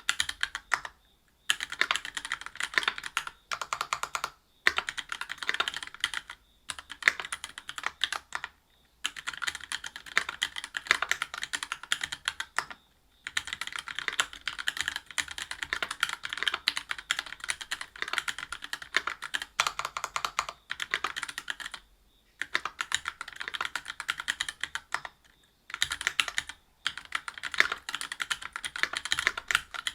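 Typing on a Whale 75 mechanical keyboard with stock Gateron Milky Yellow Pro linear switches (50 g), a brass plate and GMK doubleshot ABS keycaps: rapid runs of key clacks, broken by a handful of brief pauses.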